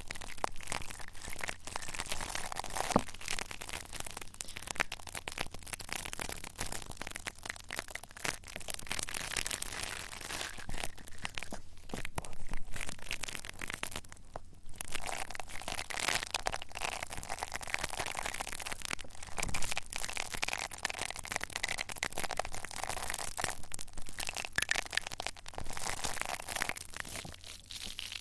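ASMR trigger sounds: dense, continuous crinkling and crackling of a handled object close to the microphone, with a couple of brief pauses midway.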